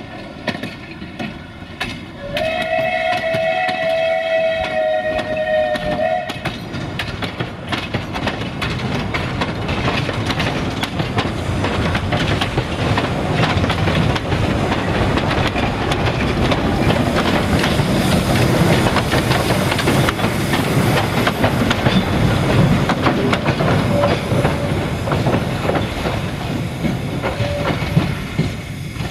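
A narrow-gauge steam train: the steam whistle sounds once for about four seconds, a couple of seconds in, while the carriages roll past clattering and clicking over the rail joints. The wheel and coupling clatter grows louder through the second half.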